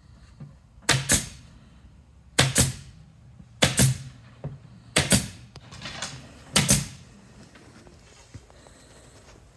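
Tambour slats being fastened to a desk: five sharp double knocks, each pair a fraction of a second apart, coming about every second and a half.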